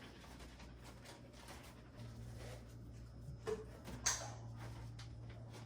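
A steady low hum comes in about two seconds in, with a few faint clicks and knocks of handling over it.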